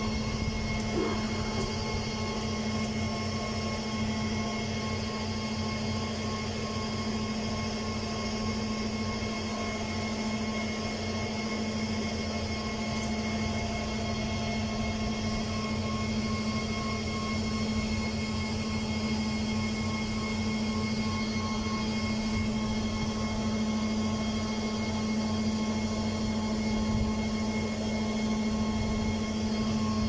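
A steady machine hum with a low drone and several fixed higher tones, unchanging throughout.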